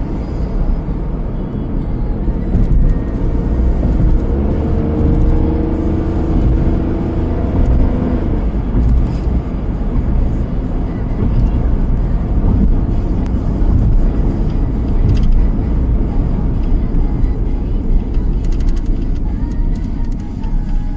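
A car being driven: a steady low rumble of engine and road noise, with an engine tone that rises in pitch between about four and eight seconds in.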